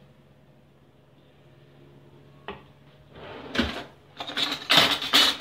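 Spoon scraping and knocking against a small glass jar as thick pepper paste is spooned in. A single click about halfway through, then a run of scraping and clattering in the last two seconds, loudest near the end.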